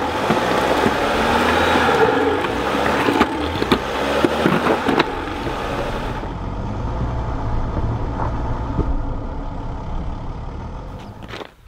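A Mercedes Sprinter 4x4 van's engine running at low speed while the van crawls over a rocky trail, with rough crunching and scattered knocks from the tyres and rocks. About six seconds in the crunching eases, leaving a steady low engine hum that fades near the end.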